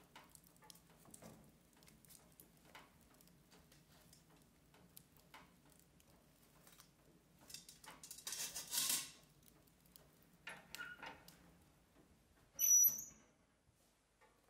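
A wood fire crackles faintly in a cast-iron wood stove. Midway there is a rustling scrape as a foil-wrapped sweet potato is set on the grate. Near the end comes the loudest sound, a short high metallic squeal and knock as the cast-iron stove door is shut.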